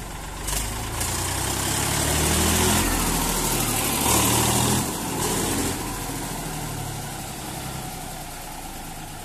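Eicher 368 tractor's diesel engine running on its own after being started through the PTO shaft from another tractor, since its self-starter has failed. It revs up and down twice in the first five seconds as it drives off, then runs steadily.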